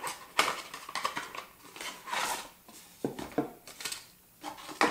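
A small cardboard product box being handled and opened by hand: irregular rustling, scraping and sharp clicks of the packaging as the pump bottle of gel is taken out.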